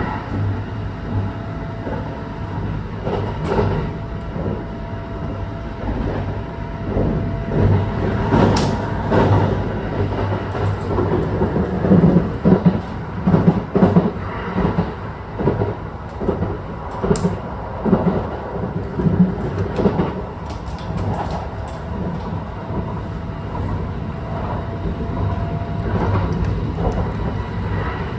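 Running noise inside a moving Kintetsu Hinotori limited express carriage: a steady low rumble, with irregular knocks and rattles through the middle.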